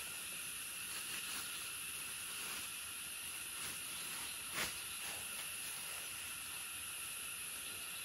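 Steady high-pitched hiss of insects droning, with a single sharp click about halfway through.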